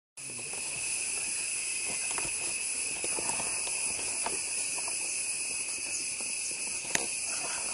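Steady high-pitched drone of an insect chorus, with a few short sharp sounds scattered over it, the loudest about seven seconds in.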